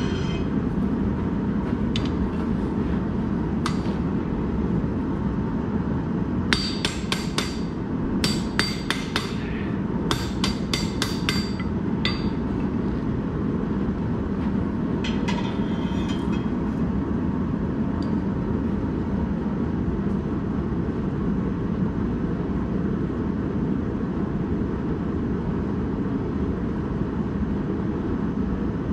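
Hand hammer striking steel, each blow ringing. A couple of single blows come first, then two quick volleys about six to twelve seconds in and a short run a few seconds later, all over a steady low roar.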